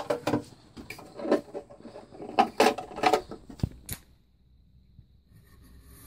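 Plastic lid of a Dudley Vantage concealed cistern being worked loose and lifted off: an irregular run of knocks, clicks and scrapes for about four seconds.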